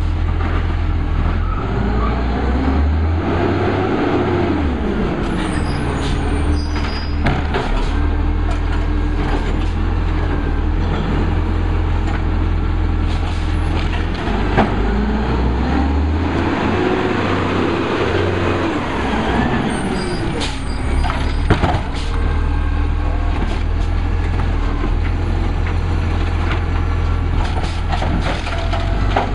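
Condor garbage truck with a Wayne Curbtender automated side-loader body: its engine runs steadily and revs up and back down twice as the hydraulic arm lifts and dumps a cart. Short hisses of air brakes and the knocks of the cart and arm come through in between.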